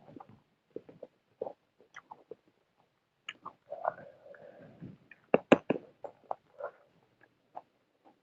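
Close-miked eating sounds: irregular wet chewing and mouth clicks, with a short cluster of sharper, louder smacks a little past the middle.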